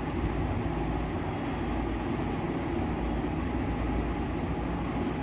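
A steady mechanical hum and whoosh, like a running fan or air cooler, unchanging throughout.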